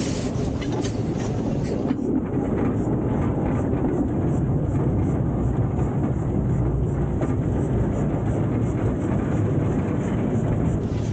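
Narrow-gauge passenger carriages rolling past close by: a steady rumble of wheels on the track, with a quick, regular clicking from about two seconds in.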